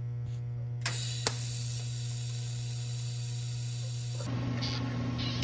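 TIG welder tacking a steel disc-brake mount tab onto a bicycle fork over a steady electrical hum. About a second in, the arc strikes with two sharp clicks and a hiss that runs for a few seconds, and the sound changes shortly before the end.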